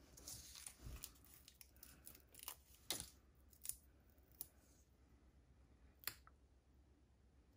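Faint paper handling: a soft rustle, then a handful of light, separate ticks and taps as fingers press die-cut, foam-backed paper letters onto a card.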